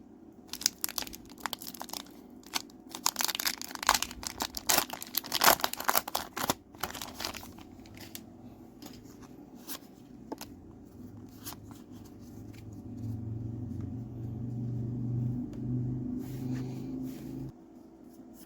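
Foil wrapper of a Pokémon card booster pack being torn open and crinkled, with dense crackling for the first several seconds, then only occasional light ticks. A low steady hum comes in about two-thirds of the way through and stops shortly before the end.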